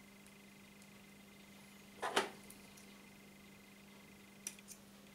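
Quiet handling of fishing line and a small line clipper, over a steady low hum. A short scrape or knock comes about two seconds in, and two small clicks follow near the end as the line is trimmed.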